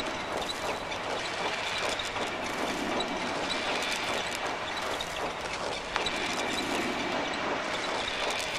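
Sound-effect machinery clattering steadily, a dense run of small mechanical clicks and ticks with a faint high tone, and one sharper click about six seconds in.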